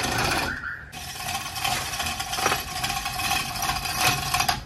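A power tool starting up about a second in and running steadily with a held buzzing tone, with scattered clicks and knocks of metal parts.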